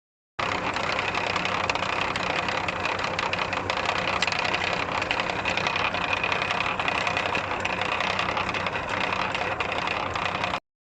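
Massey Ferguson 3095 tractor running with a steady rattle from the PTO drive, the sign of worn bearings on the countershaft above the PTO shaft. The sound starts just after the beginning and cuts off abruptly near the end.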